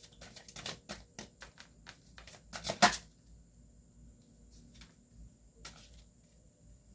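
Tarot cards being shuffled and handled: a quick run of sharp flicking clicks over the first three seconds, loudest just before the three-second mark, then one more tap near the end.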